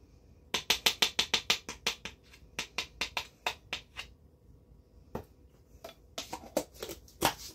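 Spoon and plastic sour cream tub being handled, with sharp taps of the spoon against the tub: a fast run of taps for about a second and a half, slower single taps for two more seconds, then a few more near the end as the lid is handled.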